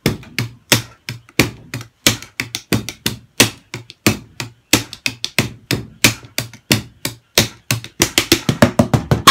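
Drumsticks playing a steady drum beat on a homemade practice kit of tape-wrapped cardboard boxes and pads, giving dull, hard knocks several times a second. In the last second or so the strokes come much faster and closer together: a drum fill running round the improvised toms.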